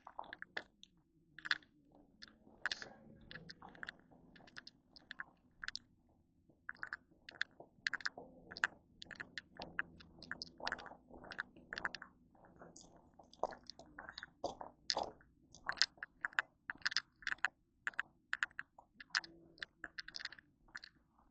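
Footsteps crunching on a hiking trail, short uneven steps about two a second.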